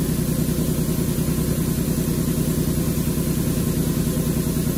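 Steady mechanical drone of shop machinery running, with a fast, even pulsing and no cutting.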